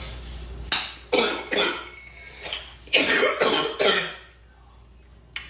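A girl coughing in two fits of three coughs each, the first about a second in and the second about three seconds in, with a short click just before the end.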